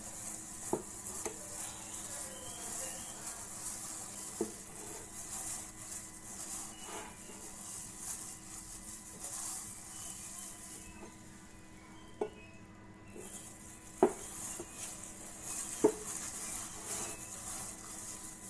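A gloved hand kneading stiff dough in a glass bowl: a rough, crinkly rustling of the plastic glove and dough that stops for a moment about two-thirds of the way in. A few sharp knocks against the bowl are scattered through it, the loudest two near the end.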